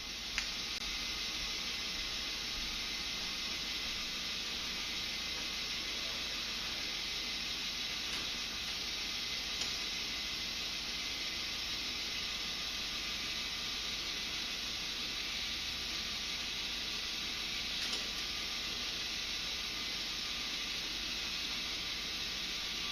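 A K'nex Ferris wheel ball lift runs on its small electric motor and plastic gears: a steady whirring hiss that starts at the beginning, with a few faint clicks scattered through it.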